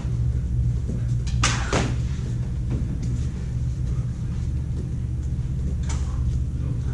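Combat lightsabers' sound boards putting out a steady low hum, with two sharp clashes in quick succession about a second and a half in as the blades meet.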